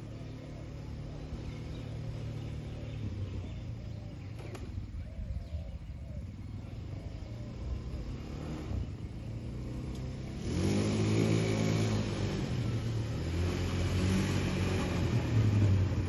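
Engine of a 200cc fully automatic shaft-drive ATV running as the quad drives across grass, distant at first and becoming clearly louder about ten seconds in as it comes close.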